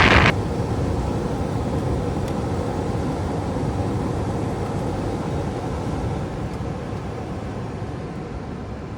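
Furnace blower fan running on a cooling call, a steady rush of air. A louder rush cuts off suddenly just after the start, and the remaining sound slowly fades.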